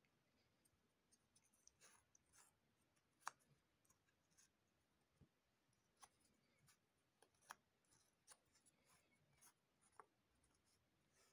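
Faint, irregular taps and light scuffing of cardboard jigsaw puzzle pieces being picked up, slid and pressed into place, about a dozen small clicks with the sharpest about three seconds in.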